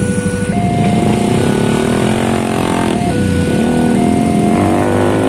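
Railway level-crossing warning alarm sounding a two-tone electronic signal that alternates between a lower and a higher tone about once a second. Under it, a crowd of motorcycle engines idles and revs up in rising glides as the barrier lifts.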